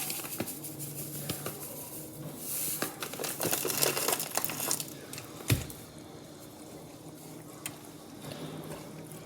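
Spaghetti sauce being stirred in a pot with rustling handling noises, as sugar is added. There is a single sharp knock, likely a utensil against the pot, about five and a half seconds in.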